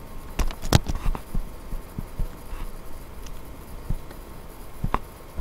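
Computer mouse clicking: a few sharp clicks in the first second or so and one more near the end, over a faint low hum.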